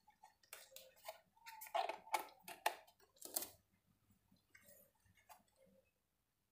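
Light clicks and knocks of a USB modem dongle being handled and plugged into a port, a quick cluster of them in the first three seconds or so, then fewer.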